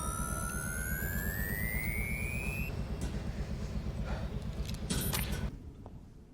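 Science-fiction sound effect: a rising electronic whine over a steady low rumble, with a few brief sharp clicks, the rumble cutting off abruptly about five and a half seconds in.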